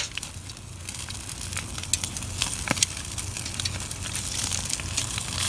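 Wood fire crackling under a wire grill grate, with irregular small pops and snaps, one a little sharper near the middle.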